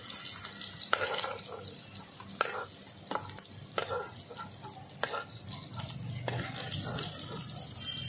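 Prawns frying in hot oil in a karahi, the oil bubbling and sizzling. A metal spoon clinks against the pan and a steel bowl several times as the fried prawns are lifted out.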